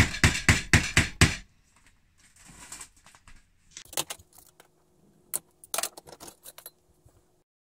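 Background music with a steady beat that stops about a second and a half in, followed by small metal clicks and rattles of a steel roller chain being worked apart at a link, with a few sharp ticks in the middle.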